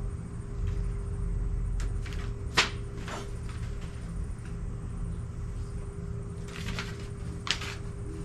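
A few sharp clicks and knocks of plastic lawnmower grass-bag parts being handled and clipped together, the loudest about two and a half seconds in, over a steady low hum.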